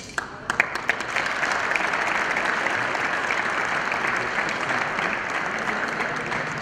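Applause from a crowd of seated players clapping their hands. It opens with a few separate claps and builds within about a second into dense, steady clapping that eases slightly near the end.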